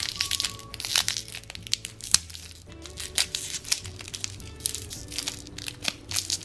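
Thin clear plastic wrapper crinkling and crackling as fingers peel it off a candy plunger lollipop: a quick, irregular run of crackles, over quiet background music.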